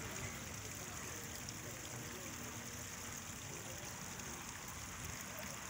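Thin stream of water trickling steadily from an artificial rock water feature into a shallow pool.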